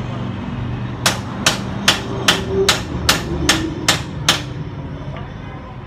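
Nine sharp metallic strikes, evenly spaced at about two and a half a second, starting about a second in: a metal tool being knocked against the oil drain bolt under a motorcycle engine while the engine oil is being drained.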